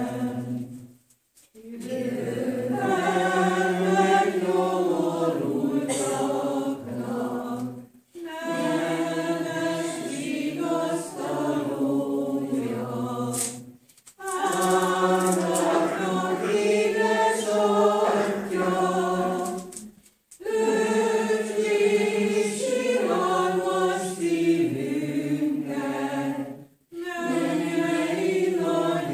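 Congregation singing a hymn unaccompanied, phrase by phrase, with brief pauses for breath about every six seconds.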